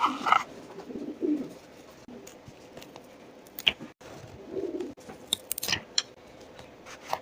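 Low grumbling coos from a bird, twice, among short crinkles and taps of paper.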